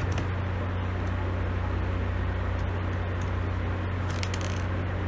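Steady low hum over a constant hiss, with a few faint light clicks near the end.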